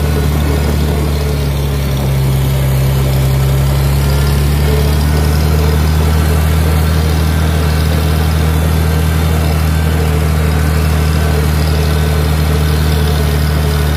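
Farmall tractor's gasoline engine running steadily under way in high gear, heard from the driver's seat, with a slight pickup about two seconds in.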